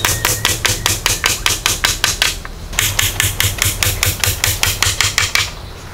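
Hatchet striking wood in rapid, sharp blows, about five a second, in two runs with a short pause about two and a half seconds in.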